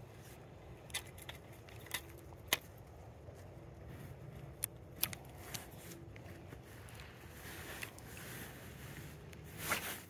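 Fishing tackle handled in a kayak: a scattered series of sharp clicks and small knocks, then a short swish near the end as the spinning rod is swung up.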